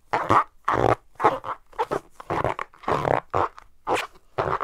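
Squeaky footsteps sound effect: an even walking rhythm of short squeaks, about two steps a second.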